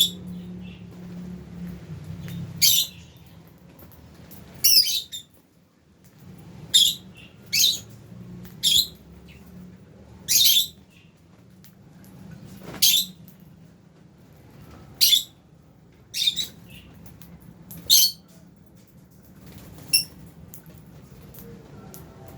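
Lovebirds in an aviary giving short, shrill, high-pitched calls, about a dozen of them spaced one to two seconds apart.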